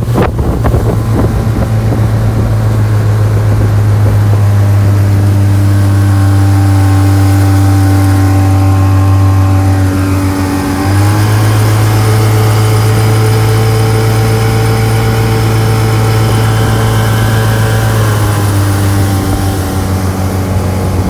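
1980 Chrysler 45 hp two-cylinder two-stroke outboard running steadily under way on a boat. Its pitch rises slightly about halfway through and dips briefly near the end.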